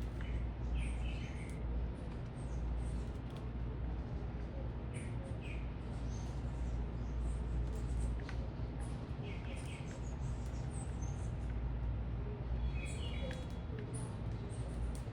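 Small birds chirping in short, scattered calls every few seconds over a steady low city rumble.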